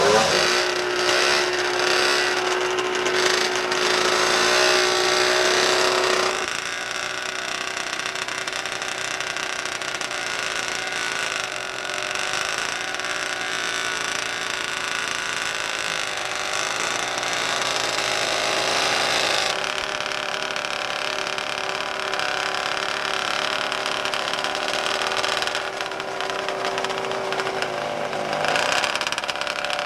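Vintage two-stroke racing snowmobile engines running hard. The sound is loudest for about the first six seconds, then goes on a little lower and steady.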